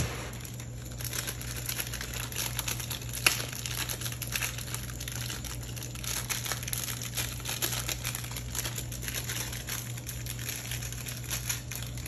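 Steady crinkling and light crackling while masala powder is sprinkled by hand over layered biryani rice in a disposable aluminium foil tray, with one sharper click about three seconds in.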